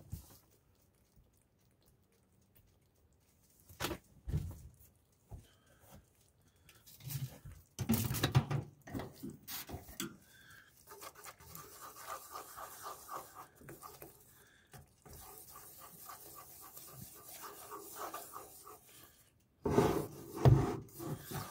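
A wooden spoon stirring meatballs in tomato sauce in a frying pan near the end, knocking and scraping against the pan. Before that come scattered quieter knocks and rubbing sounds.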